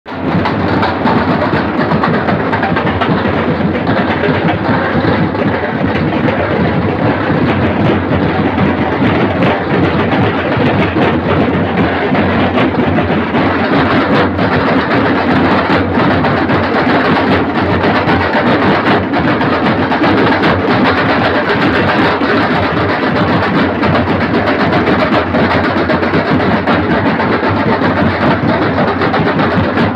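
A baja band (Indian street band) playing loudly with drums, a dense, unbroken wall of sound.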